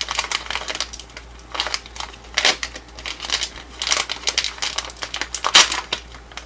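Smoked salmon jerky pouch crinkling and rustling in the hands as it is worked open, in irregular bursts, the loudest about two and a half and five and a half seconds in.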